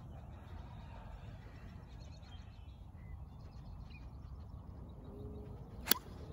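A golf iron striking a ball off the tee: a single sharp click near the end, over a steady low background rumble.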